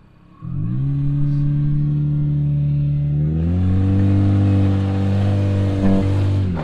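Car engine revving up about half a second in and running steadily at raised revs, its tone shifting about three and a half seconds in, then cutting off suddenly at the end.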